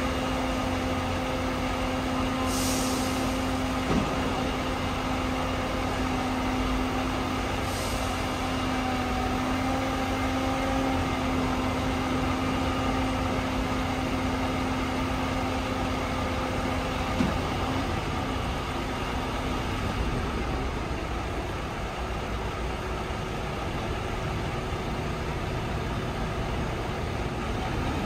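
Heavy truck engine running steadily to work a truck-mounted knuckle-boom crane, with a steady hum that shifts pitch slightly partway through. Two short hisses of air about 3 and 8 seconds in, and a couple of light knocks.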